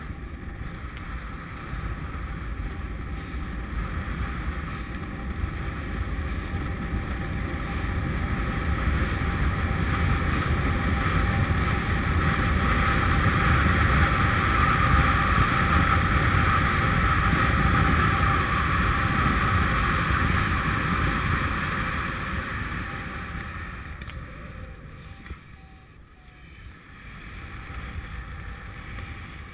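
Wind rushing over the microphone of a camera carried in paraglider flight. It grows steadily louder to a peak through the middle, eases off to its quietest a few seconds before the end, then picks up again.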